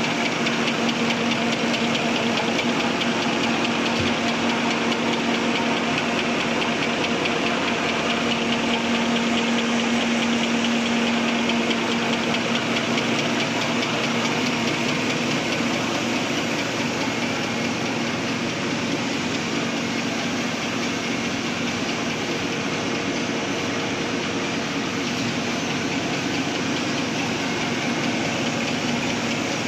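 Double-deck automatic serviette folding machine running at production speed: a steady, loud mechanical clatter and whir from its rollers and folding units, with a steady hum underneath.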